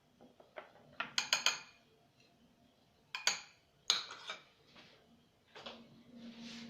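A spoon clinking and knocking against a dish while stirring a thick mixture of honey, olive oil and ground ginger: a quick run of four or five clinks about a second in, then single clinks and a soft scrape.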